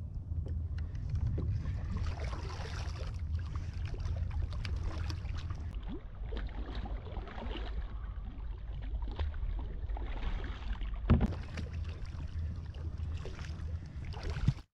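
Water splashing and sloshing against the side of a kayak as a large yellowtail kingfish is held at the surface, over a steady low rumble, with one sharper splash about eleven seconds in.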